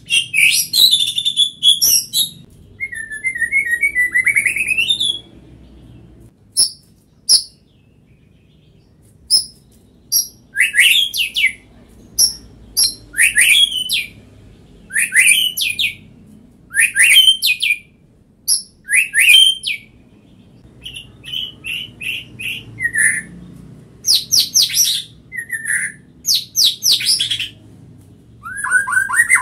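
White-rumped shama singing loudly in bursts of varied phrases: rapid rising whistles and sharp chips, with short pauses between phrases and a sparser spell of brief ticks a few seconds in.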